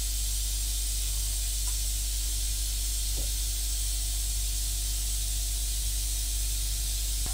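Airbrush air supply running: a steady motor hum under a continuous hiss of air, at an even level throughout.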